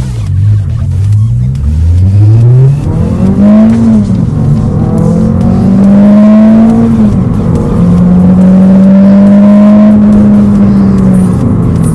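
2003 Toyota Celica's four-cylinder VVT-i engine, breathing through an aftermarket exhaust and Injen cold air intake, heard from inside the cabin as the car accelerates through the gears. The revs climb and drop back at each upshift, hold steady at cruise, then ease off near the end.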